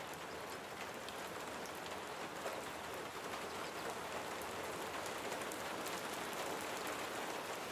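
Rain falling steadily, with scattered drops ticking.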